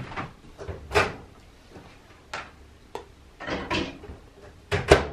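Kitchen clatter: several sharp, uneven knocks and clacks of household things being handled, loudest about a second in and again near the end.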